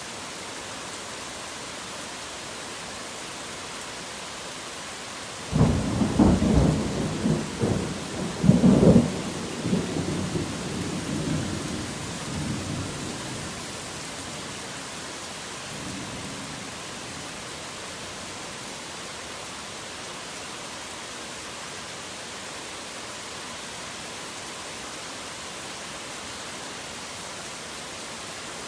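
Steady rain hiss with a thunderclap that breaks in suddenly about five seconds in, rumbles for several seconds and fades away; a faint further rumble follows a few seconds later.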